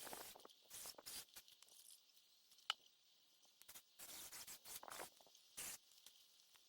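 Near silence with faint, scattered rustles and light clicks, and one sharper click about two and a half seconds in; no saw is running.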